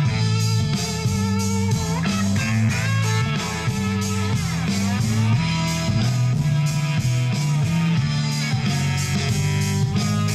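Guitar rock music from a CD playing through a freshly recapped Realistic SA-1000 integrated amplifier and its loudspeakers, with a stepping bass line and bending guitar notes.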